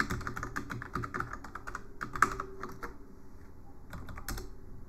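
Typing on a computer keyboard: a quick run of keystrokes for about two and a half seconds, then a few scattered key presses.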